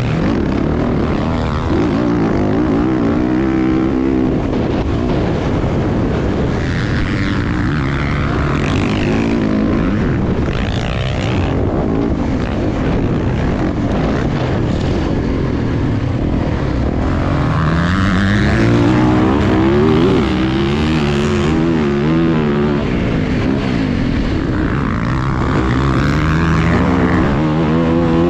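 Motocross dirt bike engine revving hard, heard from on the bike, its pitch climbing and dropping again and again as the throttle is worked through the gears over the jumps.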